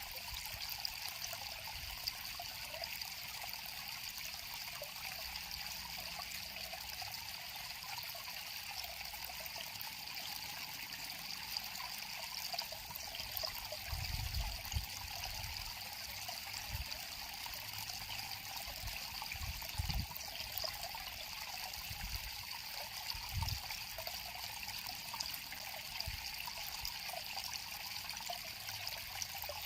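River water flowing and trickling steadily over rocks, with a few soft low bumps in the middle stretch.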